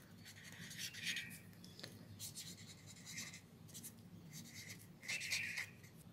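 Pen scratching on ruled notebook paper as words are written in cursive: a string of short, faint strokes with brief pauses between them.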